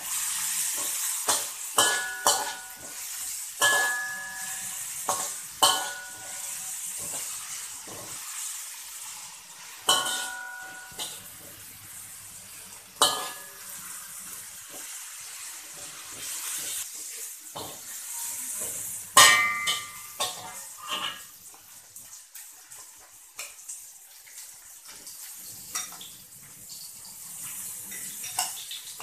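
Metal spatula scraping and clanking against a wok while ginger, garlic, shallots and lemongrass fry in hot oil with a steady sizzle. Many of the knocks ring briefly; the loudest clang comes about two-thirds of the way through.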